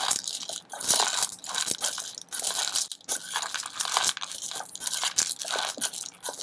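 Metal spoon stirring dry-roasted peanuts with chopped onion, chilli and coriander in a bowl. The nuts crunch and scrape against the bowl in quick, irregular strokes.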